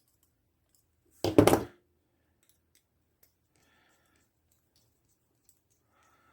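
A hand tool closes on a wire about a second in, with a short crunching snip made of several quick clicks lasting about half a second.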